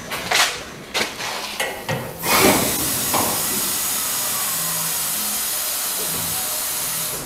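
A few knocks and clatters, then a steady hiss of air through the truck's airbag (air-ride) suspension for about five seconds as the ride height changes. The hiss cuts off suddenly near the end.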